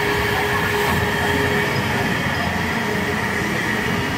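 Steam locomotive moving off slowly: a steady hiss and running noise with a thin, steady whine.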